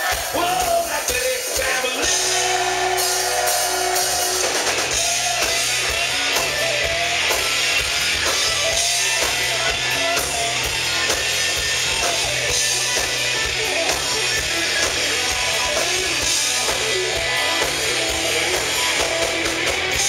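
Live rock band playing loud and continuous: electric guitars, bass and drum kit, with the full low end of the band coming in about two seconds in.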